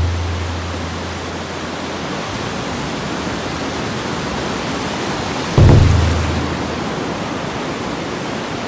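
Ocean surf breaking and washing up a sandy beach: a steady wash of waves. A sudden louder low rumble comes in about five and a half seconds in and fades over about a second.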